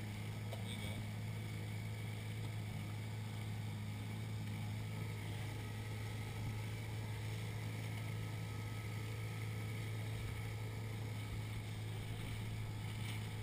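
An 8-horsepower outboard motor pushing a dinghy along at a steady speed, a constant low drone that holds the same pitch throughout.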